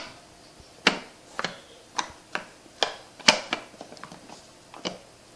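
Sliding end pieces of a handmade puzzle box clicking and knocking as they are pulled out step by step: about eight short, irregular clicks, the loudest a little past three seconds in.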